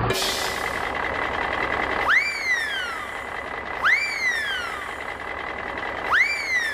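Truck engine running under a warning alarm that sounds three times, about two seconds apart; each is a whoop that jumps up sharply, then glides down over about a second.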